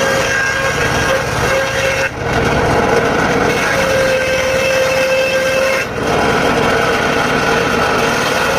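Engine-driven circular saw cutting dry teak, running loudly with a steady high whine. The sound briefly drops out and resumes twice, about two and six seconds in.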